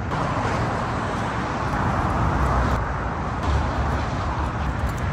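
Steady road traffic noise, cars driving past on a busy street.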